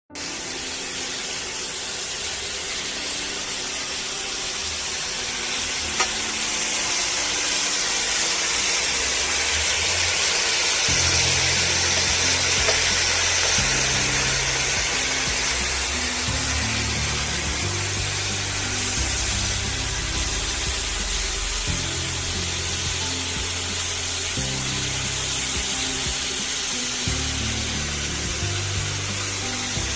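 Thin-sliced pork belly sizzling as it fries in a stainless steel pan, a steady hiss, under background music whose bass line comes in about a third of the way through.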